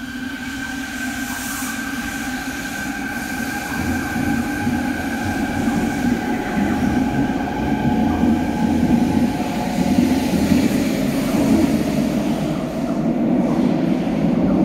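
Fukuoka City Subway Nanakuma Line 3000 series linear-motor train pulling away from the platform. The VVVF-IGBT inverter gives a steady whine of a few held tones over a rumble of running gear. The rumble grows louder from about four seconds in as the train gathers speed and runs past into the tunnel.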